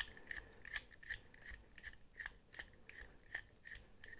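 Ratcheting screwdriver clicking evenly about three times a second as it backs out a small Torx screw holding a folding knife's pocket clip.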